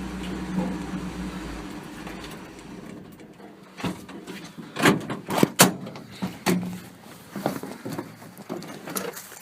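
Dodge pickup engine idling, fading away over the first couple of seconds, followed by a run of sharp knocks and clunks.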